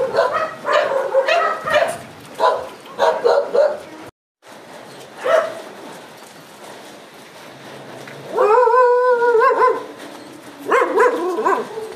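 Small dogs barking and yipping in short bursts, with one longer drawn-out call a little past eight seconds in. The sound drops out for a moment just after four seconds.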